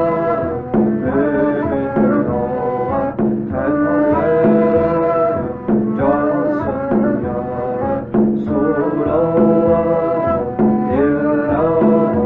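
Turkish Sufi hymn (ilahi) music: a melody of held notes moving in steps over a steady hand-drum beat.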